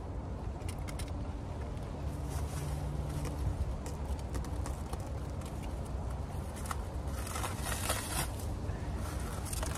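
Clear plastic wrapping on a compressed foam mattress crinkling and crackling in irregular bursts as it is handled and pulled at, busiest about three-quarters of the way through, over a steady low rumble.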